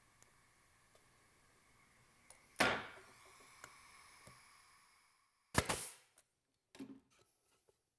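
Staple gun firing twice, about three seconds apart, driving staples into plywood; each shot is a sharp crack with a short tail. A quieter knock follows about a second after the second shot.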